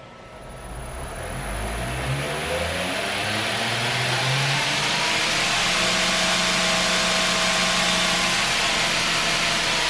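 2x72 belt grinder's electric motor, driven by a VFD, spinning up from rest: a rising whine that climbs and grows louder for the first few seconds. The motor and belt then run at steady full speed with a smooth whir.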